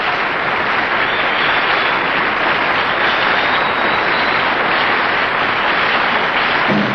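Studio audience applauding steadily, with the band starting up right at the end.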